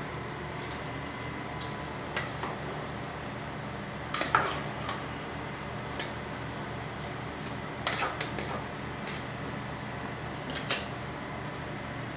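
A ladle clinking and scraping against the side of an aluminium cooking pot while stirring a thick sauce, in a few short sets of knocks over a steady low hum.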